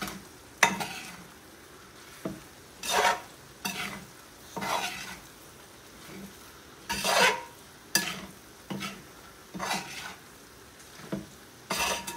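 A utensil stirring and scraping pork pepper fry around a pan, about a dozen strokes roughly a second apart, over faint sizzling: the final pepper powder and curry leaves being mixed in.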